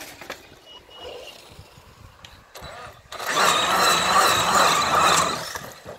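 Electric RC monster truck driving hard round the inside of a plastic tunnel. About three seconds in, its motor whines at high throttle for about two seconds while the tyres rumble against the plastic wall, then it drops away.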